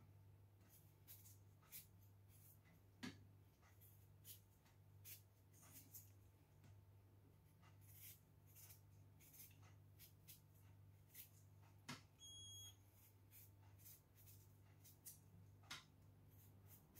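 Faint, irregular scraping and clicking of a kitchen knife paring the skin off raw potatoes, over a steady low hum. A brief high electronic beep sounds a little past twelve seconds in.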